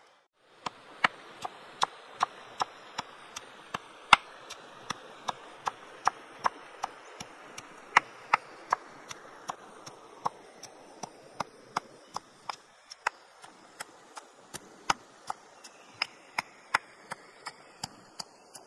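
Pestle pounding red chilies and garlic in a stone mortar: sharp, even knocks at about two to three strikes a second.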